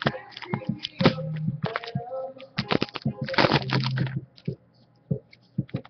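Trading cards being handled: an irregular run of sharp clicks and taps, with a brief low murmur of voice twice.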